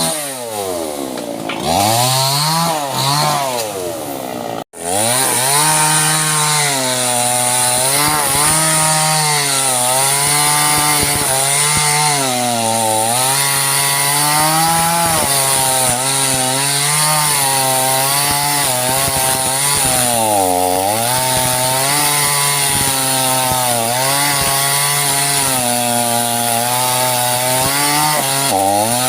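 Small two-stroke chainsaw revving up and down in quick blips. After a sudden break about five seconds in, it runs at high revs cutting sengon wood, its pitch sagging now and then as the chain bogs in the cut.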